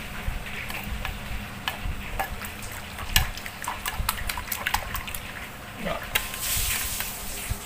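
Metal spoon stirring a liquid fish-sauce dip in a wooden mortar, clinking against the bowl with sloshing liquid. A short rush of hiss comes near the end.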